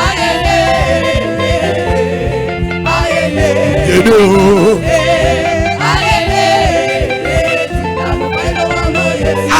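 Live gospel praise music: a voice singing a chorus in an African language, with the word "yene" heard about four seconds in, over steady instrumental backing.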